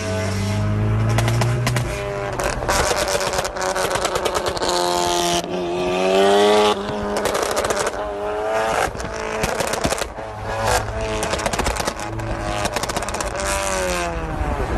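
Tuned car engine revved up and down again and again, with rapid exhaust crackles and pops firing between and through the revs.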